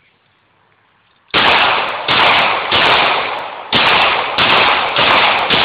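Glock 23 .40 S&W pistol firing a string of about seven shots at a steady pace, roughly one every half second to second, starting about a second and a half in.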